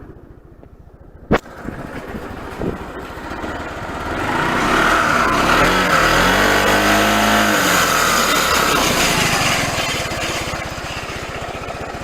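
Racing King 180 scooter's single-cylinder engine idling quietly on a new cam chain tensioner, then revved up from about four seconds in, held, and eased back down near the end. While it is revved a hissing scrape joins the engine, which the owner takes for a dragging rear brake.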